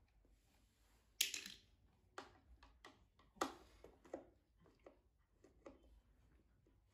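Screwdriver turning out the screws on the rear panel of a home-theatre subwoofer cabinet: faint, irregular clicks and scrapes of the tip in the screw heads. The loudest clicks come about a second in and again near the middle.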